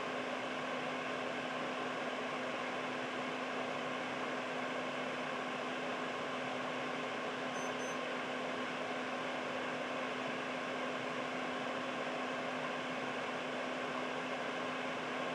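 Air purifier running steadily: an even fan whoosh with a low, steady hum. About halfway through, two short high-pitched beeps.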